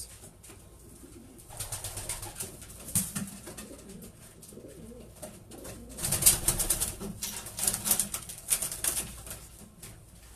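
Racing pigeons cooing in a loft, with two stretches of rapid rustling and flapping, about one and a half seconds in and again from about six seconds, the second the loudest.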